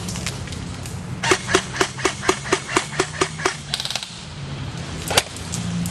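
Airsoft gun firing a rapid string of about ten shots, roughly four a second, then a quick pair of shots near the end.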